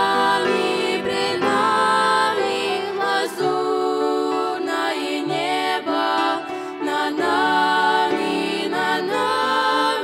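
A trio of girls' voices singing a Russian-language hymn in harmony into microphones, with long held notes, over a lower instrumental accompaniment.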